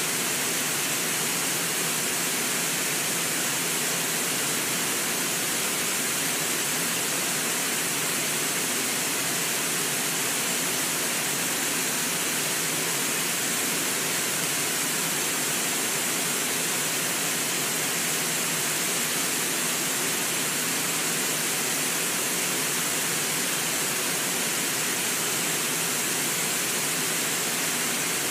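Steady, unbroken rush of a river pouring over a low waterfall and through the rapids below it, with most of its energy in a bright hiss.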